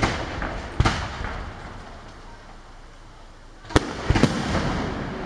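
Aerial firework shells bursting in the night sky: two sharp bangs in the first second, then a quick cluster of three bangs about four seconds in, each trailing off into a fading rumble.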